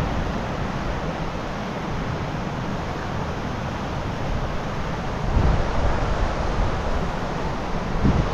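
Wind buffeting the microphone: a steady rushing rumble with no other distinct sound, gusting louder about five seconds in.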